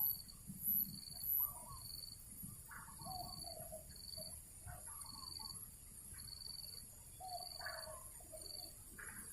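Birds calling intermittently in short, wavering calls, over a steady high hiss and a faint high chirp repeating about once a second.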